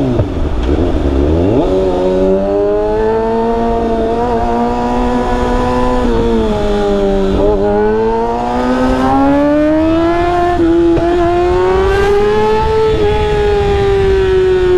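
Kawasaki Ninja ZX-6R inline-four engine accelerating through the gears. Its pitch drops sharply at a shift about a second in and again around seven seconds, climbs steadily between shifts, and eases off near the end, over a low rush of wind noise.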